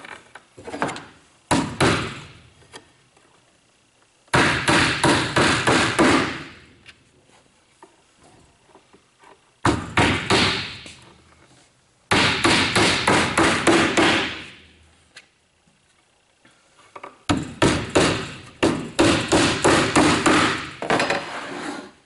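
Claw hammer driving nails into a wooden strip on a beehive bottom board frame: several runs of quick, sharp blows, about four a second, with short pauses between nails.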